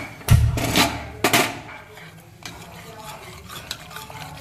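Steel ladle stirring thick dalia in an aluminium pressure-cooker pot, clinking and scraping against the metal. A louder cluster of knocks and rumble comes in the first second and a half, then the stirring goes on more quietly with scattered clicks.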